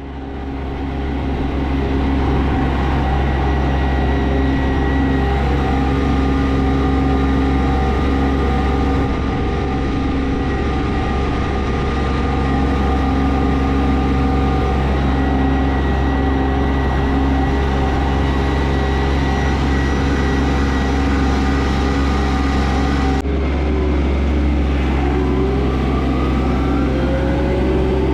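Kioti 3510SE compact tractor's diesel engine running steadily at constant speed. After a break about 23 seconds in, the engine note climbs as it revs up.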